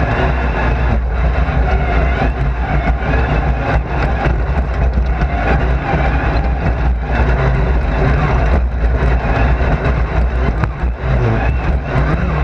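A racing car's engine running hard under load, heard from inside the car, with road and tyre noise throughout. The engine note drops briefly several times, as the driver lifts off or changes gear.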